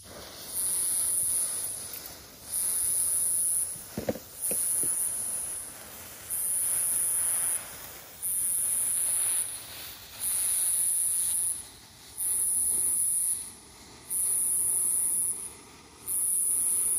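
An insect calls in high-pitched pulses, each about a second long and repeating roughly every two seconds, over the faint hiss and sputter of a burning fuse. A couple of small pops sound about four seconds in.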